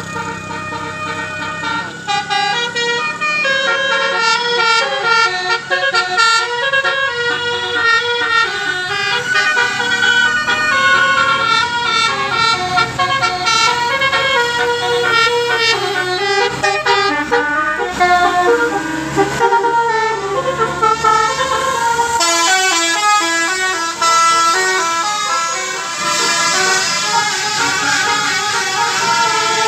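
Tour bus's Basuri telolet horn playing a tune: a quick run of changing horn notes, several sounding at once, with a low engine rumble under the first part. About two-thirds of the way through, the notes turn higher and faster.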